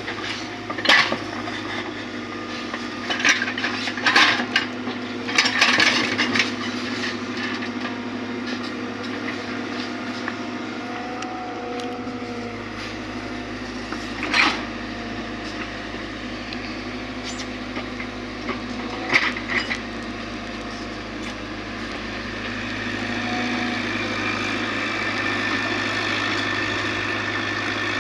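Excavator's diesel engine running steadily while stones knock and clack against each other and the bucket. There are several sharp knocks in the first six seconds and single ones about halfway and a little later. The engine gets somewhat louder near the end.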